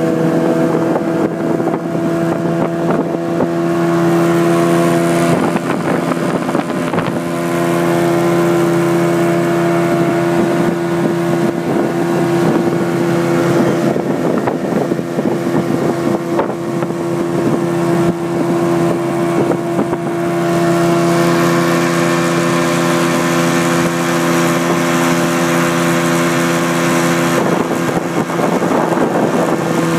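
Outboard motor of a small river boat running at a steady cruising speed, its even hum shifting slightly in pitch a few times, over a constant hiss of wind and water.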